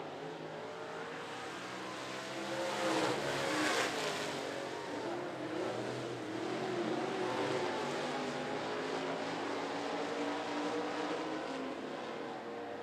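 Several dirt-track stock cars racing in a pack, engines at high revs, their pitch rising and falling as they work through the turn. Loudest about three to four seconds in, as the cars pass closest.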